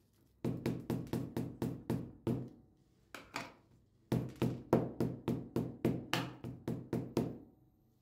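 A plastic storage container filled with small seeds is knocked over and over, about four knocks a second, in two runs with a couple of single knocks between them, as the grains are settled during filling.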